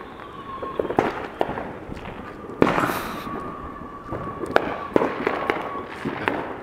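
Neighbourhood fireworks and firecrackers going off: a scattered string of sharp bangs and pops at uneven intervals, the loudest about two and a half seconds in.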